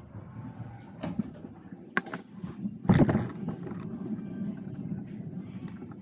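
Wheelchair rolling out of an elevator and across a smooth floor: a steady low rumble from the wheels, with a few sharp knocks, the loudest about three seconds in.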